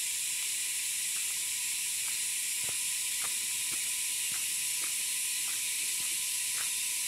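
Steady high-pitched hiss of an insect chorus from the roadside jungle, with a faint thin whine running through it and a few soft scattered clicks.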